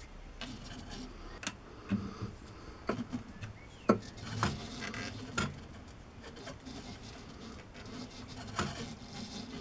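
Scattered clicks and knocks of metal tools and parts being handled while a workpiece is set up on a lathe, the loudest knock about four seconds in, over a faint steady hum.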